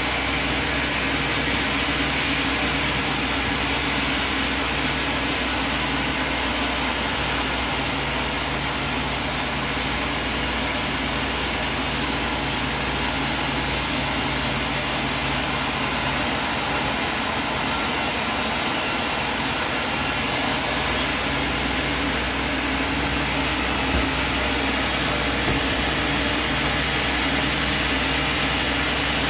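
Band sawmill running steadily, its motor and blade making a constant machine noise with a low pulsing hum, and a light knock about three-quarters of the way through.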